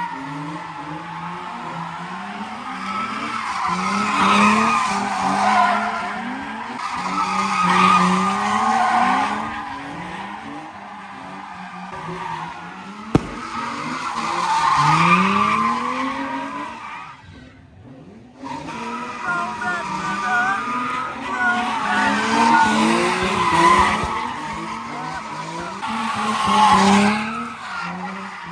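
Car engines revving hard over and over, with tires screeching as cars do burnouts and spin their wheels. There is a sharp click partway through and a brief lull a little past halfway.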